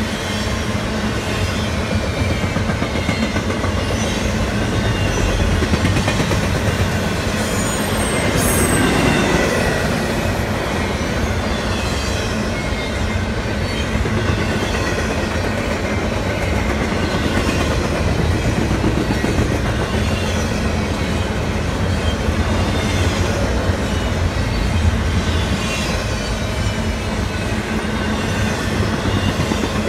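Double-stack intermodal well cars of a CSX freight rolling past on a curve: a steady rumble of steel wheels on the rails, with thin high squeals from wheel flanges grinding in the curve, briefly strongest about eight seconds in.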